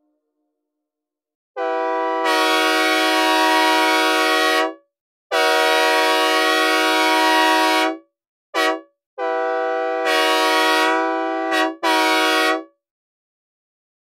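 Synthesized recreation of a Leslie S4T/SL4T diesel locomotive air horn, dry with no reverb, sounding its chord in a crossing-style sequence. It plays two long blasts, a short one, then a final longer blast with a brief break near its end. Each blast starts and stops abruptly.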